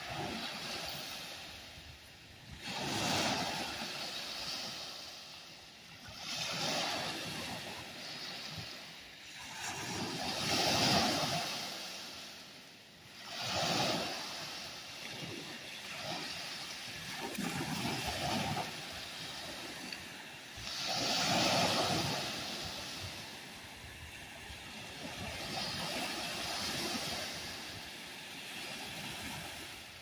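Small freshwater waves from Lake Huron breaking and washing up a sandy beach. Each break is a swell of surf noise, coming every few seconds and rising and falling in loudness.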